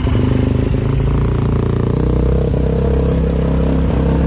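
Tuned motorcycle engine with an open carburettor bell-mouth running steadily just after starting, still cold. It is a little uneven in the first second, then holds an even idle.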